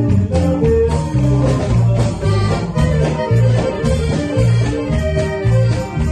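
Instrumental norteño music: accordion melody over a regular alternating bass line, with no singing.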